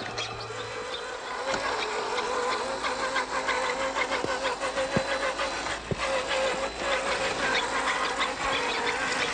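Small electric motor and geared transmission of a Cross RC Demon scale crawler whining steadily as the truck drives. The whine starts about a second and a half in and wavers slightly in pitch.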